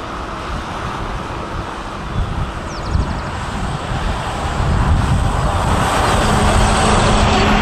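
Highway traffic, cars and trucks running past in a steady rush of noise. It grows louder about five seconds in, and a steady engine drone comes in near the end.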